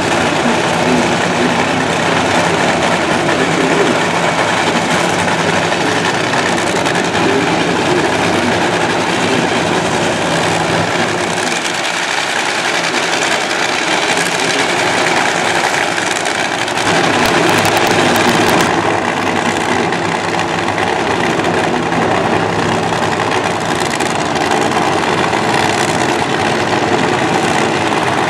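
Nitro-burning Funny Car engine idling, loud and steady.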